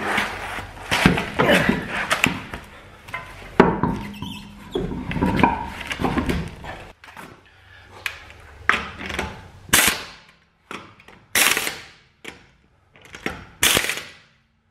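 Car wheel being hung back on its hub, with clunks and scraping. From about ten seconds in, a pneumatic impact wrench fires about five short bursts as it spins the lug nuts on.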